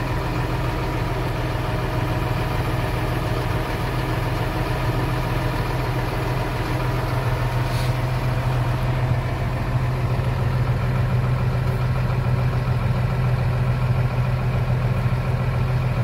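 Tractor engine running steadily, heard from inside the cab as a constant low hum. There is a single brief click about eight seconds in.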